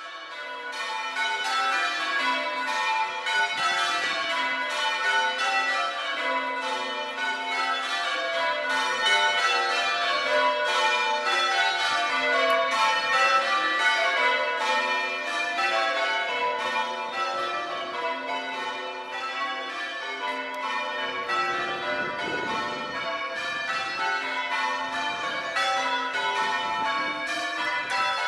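A ring of six English church bells, a mixed set cast between 1540 and 1925 with the tenor in A, rung one after another in continuous rapid sequence. The strikes overlap and keep ringing into each other, fading in over the first second.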